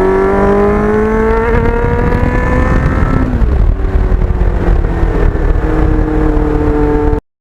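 Kawasaki Ninja GPX750R's inline-four engine through a Norton muffler, pulling under acceleration with the pitch climbing, dropping with a gear shift about three seconds in, then climbing again. Cuts off suddenly near the end.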